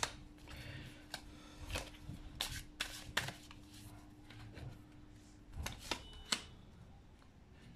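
Tarot cards being handled and laid out: scattered soft taps and flicks of card, several around two to three seconds in and another cluster near six seconds.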